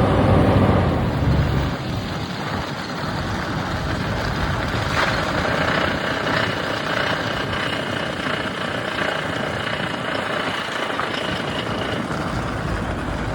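A 1999 Toyota Land Cruiser on the move: a strong low engine hum for the first couple of seconds, then a steady rush of engine and road noise.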